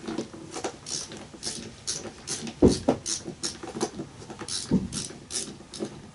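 A hand screwdriver turning a self-tapping screw into a scooter's plastic front panel, a short scrape or creak with each twist of the screw, roughly two a second. Two heavier knocks come near the middle and about three-quarters of the way through.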